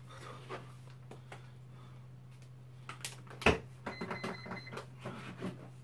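A sharp knock, then an electronic beep lasting about a second, with light clinks of dishes around it, over a steady low hum.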